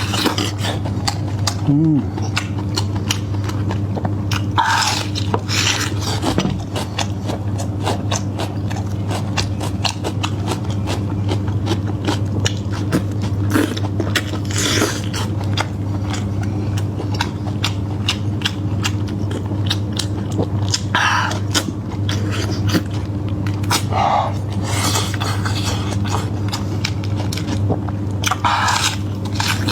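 Close-up eating sounds: biting and chewing meat, with many quick wet mouth clicks and a short noisy breath or slurp every few seconds. A steady low hum runs underneath.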